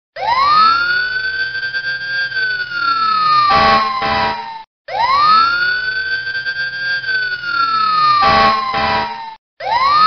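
American police siren winding up to a high wail, holding about a second, then sliding slowly down, with two short horn blasts as it falls. The same siren cycle plays twice with a short break between, and a third begins near the end.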